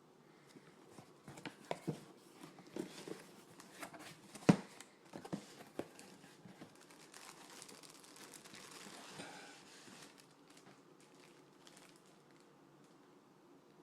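Packaging being handled and opened: a run of sharp crackles and crinkles, with one loud snap about four and a half seconds in, then a longer tearing, rustling stretch that dies away.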